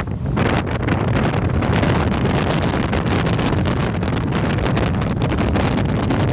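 Heavy wind buffeting on the microphone of a camera riding on an open-top Mini convertible driving fast on a gravel road, with the car's engine and tyre noise underneath.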